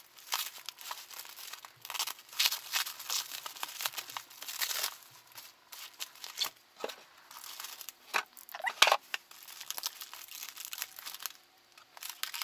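Plastic packaging crinkling and rustling in irregular bursts as comic books in clear plastic sleeves are unwrapped by hand, dying down about a second before the end.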